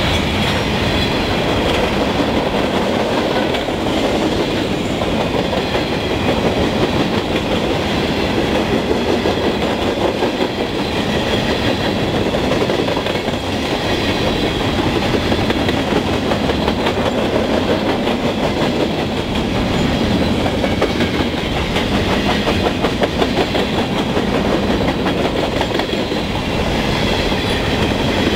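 Freight train's covered hopper cars rolling past close by: a steady rumble of steel wheels on rail with rapid clickety-clack over the rail joints.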